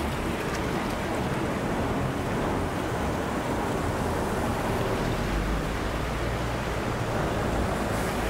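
Khlong Saen Saeb canal passenger boat's diesel engine running close by, with churning canal water. The low engine drone grows stronger about five seconds in.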